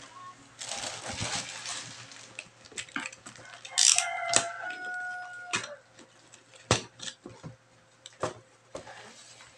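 Cardboard box being handled and packing tape peeled off: rustling, scraping and sharp clicks. About four seconds in, a clear pitched squeal holds for nearly two seconds and is the loudest sound.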